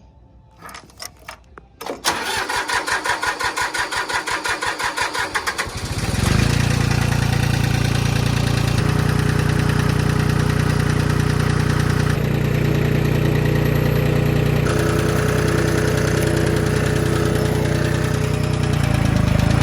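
1997 Ford 7.3 Powerstroke turbo-diesel V8 starting: a few clicks, then the starter cranks with a rhythmic pulse for about four seconds before the engine catches and settles into a steady running idle.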